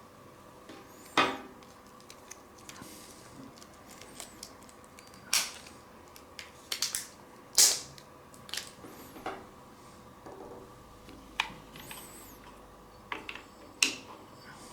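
Hands unpacking and handling small plastic wireless-microphone parts and packaging: irregular sharp clicks and taps with short rustling scrapes in between.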